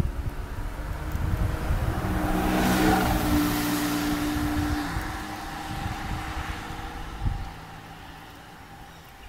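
A car driving past, its engine hum and tyre noise swelling to a peak about three seconds in and then fading away.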